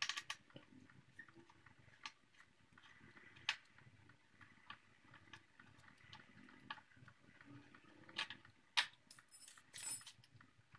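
Hex key working the mounting bolts of a motorcycle rear brake master cylinder: scattered light metallic clicks and ticks as the key turns and shifts in the bolt heads, with a few sharper clinks near the end.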